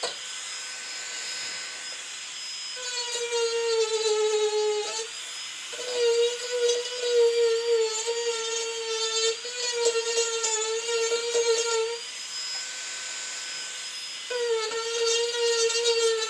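Marathon micro motor handpiece spinning a diamond burr against wood: a high, steady electric whine. In spells of a few seconds it gets louder and rougher and its pitch sags slightly as the burr bites into the carving, and it runs lighter and smoother for the first couple of seconds and again about three-quarters of the way through.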